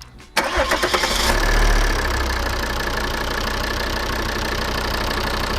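Volvo diesel engine being cranked and catching about half a second in, flaring up briefly, then settling into a steady idle.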